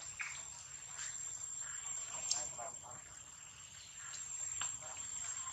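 Steady high-pitched insect drone, with short scattered chirps and clicks over it.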